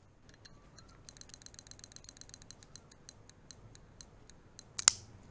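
Rapid clicking as a brass pocket watch is turned like a dial in the lock recess of a wall safe, the clicks spacing out as it turns. One much louder, sharp click comes near the end.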